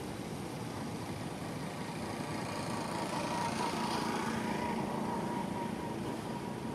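An engine running steadily, with a low hum and a higher tone that swell a little in the middle.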